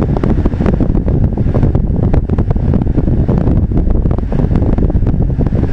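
Steady low rumble of a car driving slowly, heard from inside through a windscreen dashcam: engine and tyre noise, with many small clicks and rattles over it.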